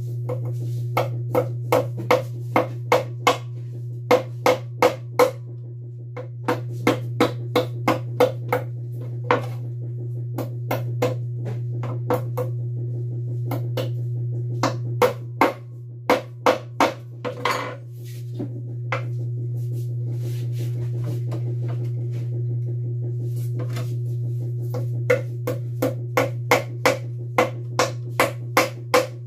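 Hammer driving nails into wood: runs of quick sharp blows, about three a second, broken by short pauses and one longer pause past the middle, over a steady low hum.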